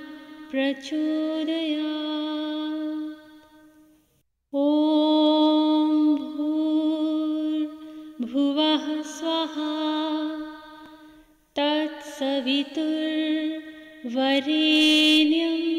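A Sanskrit mantra sung slowly as devotional chant by a single voice, holding long drawn-out notes. The phrases break off with short pauses about four and eleven seconds in.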